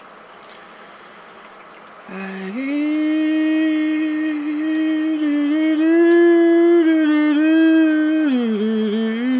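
A man's voice singing long, held chant-like notes, starting about two seconds in, with a few small steps in pitch and a dip lower near the end.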